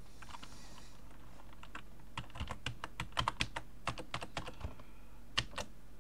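Computer keyboard keys being typed: a run of quick keystrokes for about four and a half seconds, then one more key press near the end.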